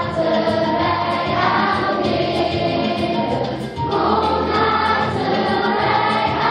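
A group of children singing together in held notes over instrumental accompaniment.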